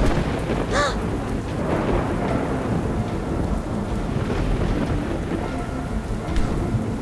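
Steady rain sound effect with a continuous low thunder rumble. A brief, high pitched tone rises and falls about a second in.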